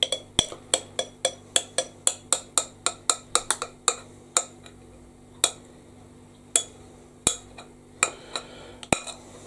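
Metal spoon clinking against a glass mixing bowl while batter is scraped out: a quick run of sharp clinks, about four a second, for the first four seconds, then slower, scattered clinks.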